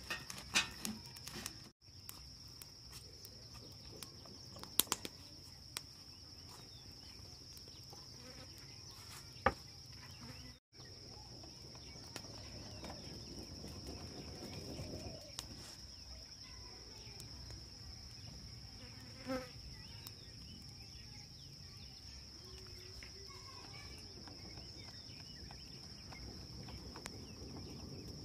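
Steady high-pitched insect drone running without a break, with a few scattered light knocks.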